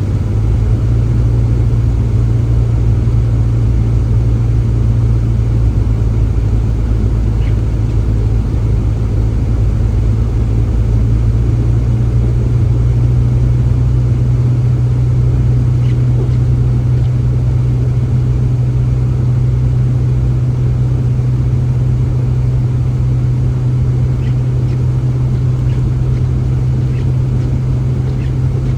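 Steady low hum and rumble of a running engine, unchanging throughout, with a few faint ticks.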